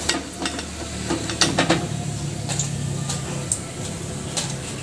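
Onion vadai frying in hot oil with a light sizzle, while a wire mesh strainer clinks and scrapes against the aluminium kadai as the fritters are scooped out and lifted to drain. Several sharp clicks come at uneven intervals, the loudest about one and a half seconds in.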